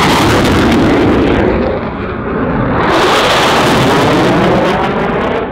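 Jet roar from a Blue Angels F/A-18 Super Hornet's twin turbofans at high power during a low, fast pass. The roar is very loud, eases about two seconds in, then surges again about three seconds in.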